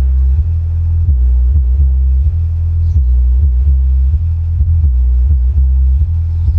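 Wisdom SW 12A active 12-inch subwoofer playing music at high volume. Only the low end is heard: a deep bass line stepping between notes, with regular kick-drum thumps.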